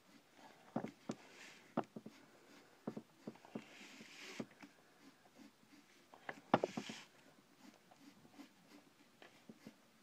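Pencil scratching on paper as a big circle is drawn: three short, soft swishes amid scattered light taps and knocks, the loudest knock near the last swish.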